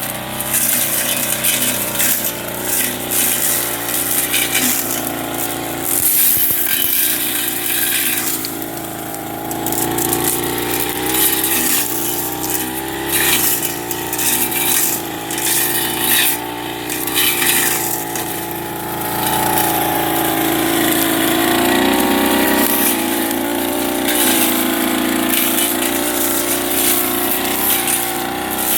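Small 30cc backpack brush cutter engine running at high revs, its pitch wavering as the blade works through weeds and rising to a higher, steadier pitch about two-thirds of the way in. Frequent brief clatters from the blade striking cut vegetation.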